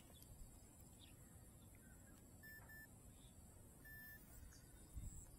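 Near silence over a low rumble, broken by a few faint electronic beeps from the radio-control gear near the middle: two short ones, then one slightly longer.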